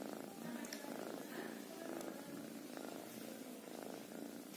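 Ginger tabby cat purring steadily, in even cycles of about a second.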